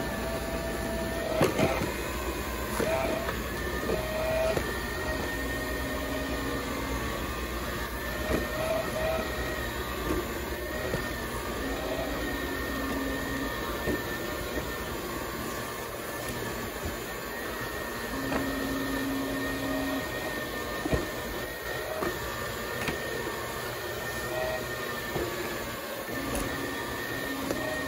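Floor scrubber running over a hard floor with its scrub pad spinning: a steady motor whine, and a lower hum that comes and goes for a second or two every few seconds.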